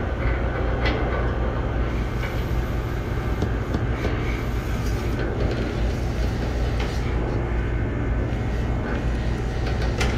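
Steady low mechanical rumble and hum, with a few faint metallic clicks as an adjustable wrench tightens the set screw of a fan blade hub onto a condenser fan motor shaft.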